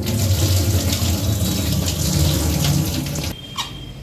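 Soaking water being poured off basmati rice from a tilted aluminium pot: a heavy, steady gush of water that cuts off suddenly a little over three seconds in, followed by a faint click.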